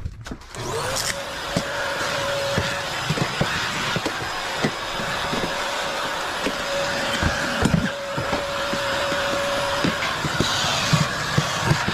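Canister vacuum cleaner switched on a little under a second in, its motor rising to a steady whine. Its wand sucks up debris from a storage compartment, with frequent small knocks and clicks.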